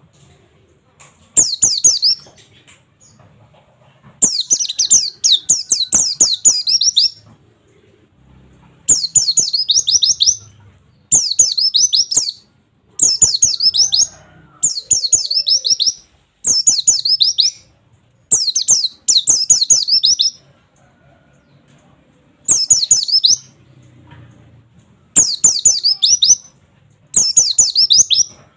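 Pleci (white-eye) singing its fast 'nembak' song: bursts of rapid, high, falling 'wit wit wit' notes, each a second or two long, repeated every couple of seconds. Scattered sharp clicks fall between the bursts.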